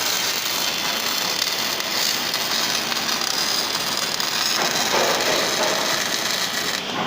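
MIG welding arc burning in one continuous run, a steady hiss, cutting off sharply near the end as the torch trigger is released.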